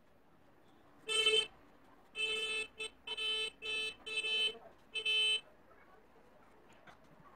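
A horn sounding in a run of about six short, irregularly spaced honks at one steady pitch.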